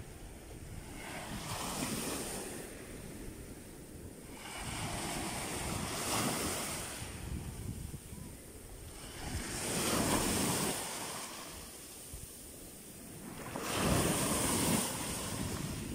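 Small waves breaking and washing up a sandy shore, the surf swelling and fading about every four seconds, four times, with wind rumbling on the microphone.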